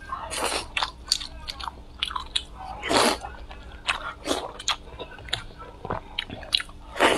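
Close-miked mouth sounds of a person biting into and chewing braised pork belly: a string of short bites and chewing sounds, the loudest about three seconds in and again near the end.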